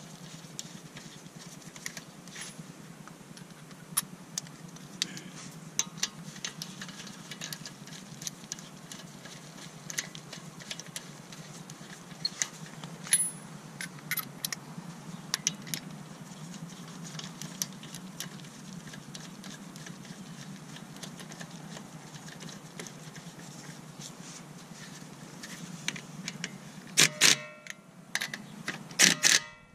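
Scattered metal clinks and clicks of lug nuts and a socket on an extension being worked onto a car's wheel studs by hand, over a steady low hum. Near the end a cordless impact wrench gives two short bursts, snugging the lug nuts.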